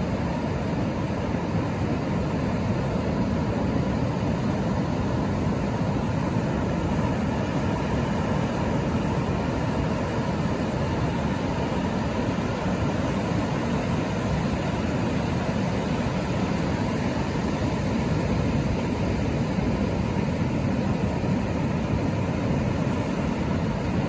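Ocean surf breaking offshore and washing up over a flat sand beach among rocks: a steady, continuous rush of waves, heaviest in the low end.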